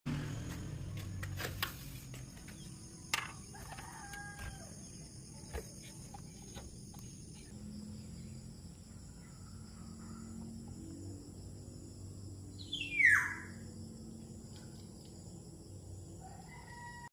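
Bird calls: a few short soft calls early on, then one loud call about thirteen seconds in that slides steeply down in pitch. A faint steady high-pitched hum runs underneath.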